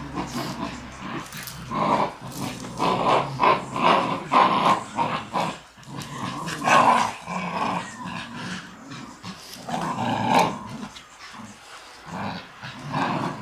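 Shiba Inus growling in bursts while tugging on a lead between their teeth: play growling in a tug-of-war.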